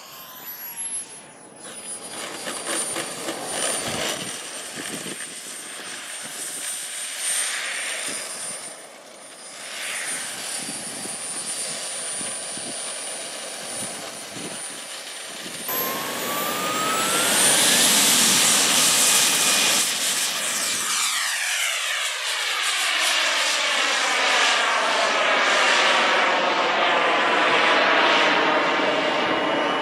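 Radio-controlled model airplane motors whining in flight, with a thin high steady tone over the engine sound. In the second half it gets louder, with a rising whine as the throttle comes up, then a close pass whose sound sweeps as the plane goes by.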